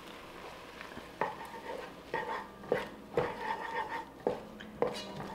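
Wooden spoon stirring minced garlic into onions sautéing in water in a pot, knocking and scraping against the pot about twice a second from about a second in.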